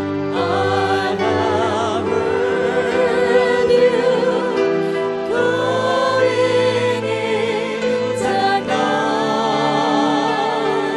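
Christian worship music: a slow gospel song sung by several voices with vibrato over a sustained instrumental accompaniment.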